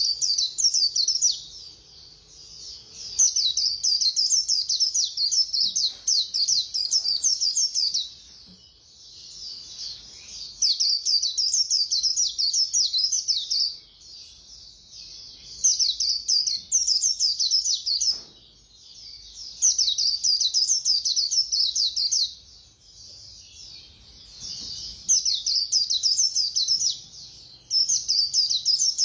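White-eye singing a fast, high, twittering warble in repeated bouts of about two to five seconds, each broken off by a short pause.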